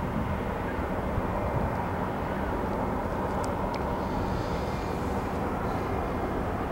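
A cut of empty gondola cars being shoved slowly along the track by an out-of-sight diesel locomotive: a steady rumble of the engine and rolling wheels, with a faint high squeal from the wheels on the rail in the later part.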